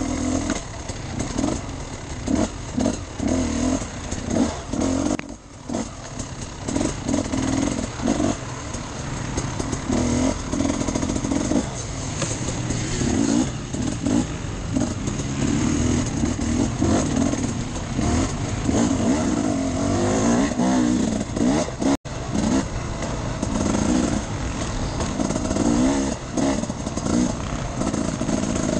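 Enduro motorcycle engine revving up and down as it is ridden off-road, the pitch repeatedly rising and falling with the throttle. The sound cuts out for an instant about two-thirds of the way through.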